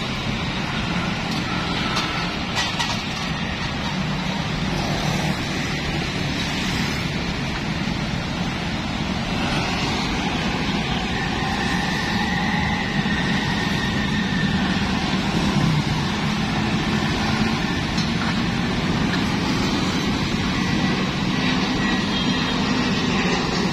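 Steady road traffic: motorbikes and cars passing, a continuous hum of engines and tyres with no single event standing out.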